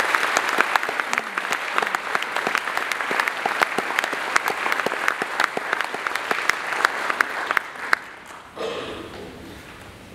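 Audience applauding in a concert hall, many hands clapping densely, then dying away about eight seconds in to a faint murmur.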